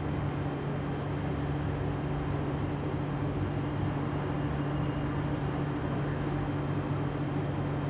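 A steady low machine hum with a constant rushing noise, unchanging throughout.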